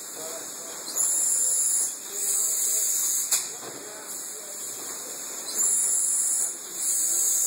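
Syringe production machine running, with loud bursts of compressed-air hiss about a second long, coming in two pairs, and a sharp click at the end of the first pair.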